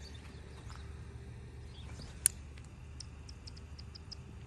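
Thin ice on a frozen puddle ticking and cracking faintly, with one sharp crack a little past two seconds in and a run of small high ticks about a second later, over a low steady rumble.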